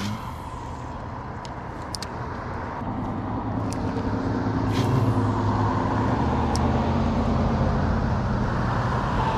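A steady engine hum grows louder over the first five seconds and then holds, with a few sharp clicks scattered through it.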